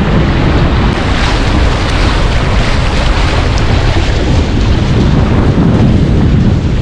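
Wind buffeting the microphone on a Hobie Getaway catamaran under sail, a loud, steady rumble and hiss, with water rushing along the hulls underneath.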